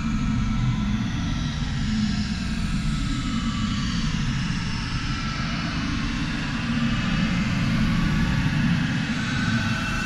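Dark ambient space music: a steady, deep rumbling drone with a hazy wash above it, in which faint tones slowly sweep down and then back up.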